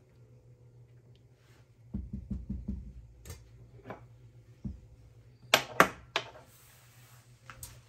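A silicone spatula stirring thick dal in a nonstick pan, with a quick run of soft low knocks about two seconds in. A few sharp clicks and knocks follow as the spatula is lifted out, and the loudest come in a group of three about five and a half to six seconds in.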